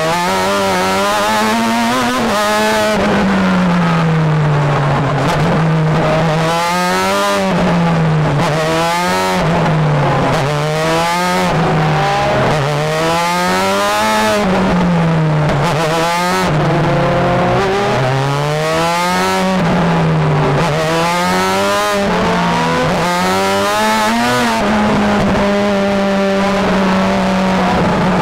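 Onboard sound of a Star Mazda open-wheel race car's Mazda rotary engine at racing speed, its pitch repeatedly climbing under acceleration and dropping back through gear changes and braking for corners. Near the end the engine note holds steady.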